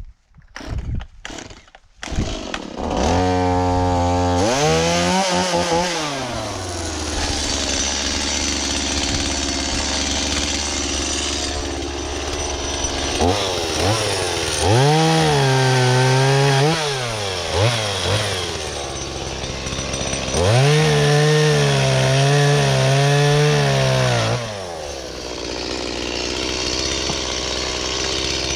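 Two-stroke chainsaw starting about two seconds in after a few knocks, then idling and revved hard three times for a few seconds each, as when bucking a wind-thrown tree across a trail.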